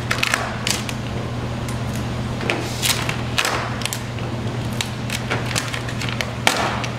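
Vinyl wrap film crackling and rustling as it is pulled and spread by hand over a car hood. A few longer swishes come from a squeegee stroking across the film, the loudest near the end. A steady low hum runs underneath.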